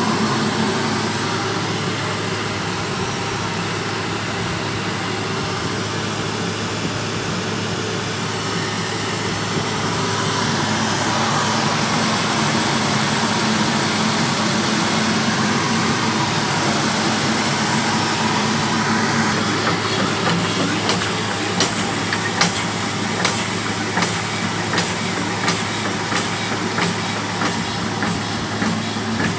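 Biomass-fired steam plant running, with a steady hiss of steam and a low hum. About two-thirds of the way in, its single-cylinder steam engine starts a regular beat of sharp strokes, roughly one or two a second, as it turns the generator.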